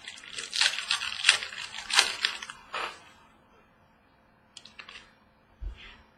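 Trading card pack handling: a foil pack wrapper crinkling and tearing and cards sliding and being flipped, in a run of rustles over the first few seconds, then a few light clicks and a soft thump near the end.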